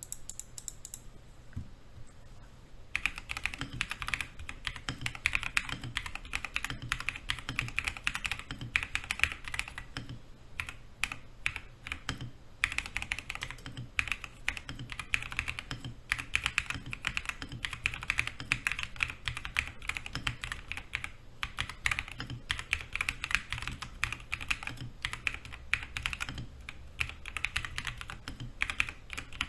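Typing on a Feker IK75 mechanical keyboard with unlubed Feker Panda tactile switches, a polycarbonate plate, no foam, unmodded stabilizers and PBT keycaps. Sparse at first, then a fast continuous run of fairly deep keystroke clacks from about three seconds in.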